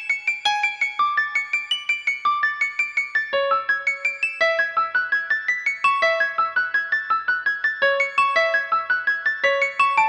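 Alcatel OT-715 mobile phone ringtone: a polyphonic melody in a piano-like tone, a quick run of notes at several per second.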